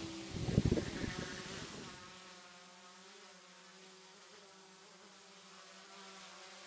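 Quadcopter drone's propellers buzzing steadily in a hover, a quiet even hum of several steady tones. A brief low rumble comes about half a second in, as music fades out.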